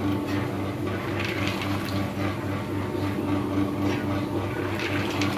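Coated-peanut frying machine running: a steady, evenly pulsing motor hum under a wet, bubbling hiss with scattered crackles, as of peanuts frying in hot oil.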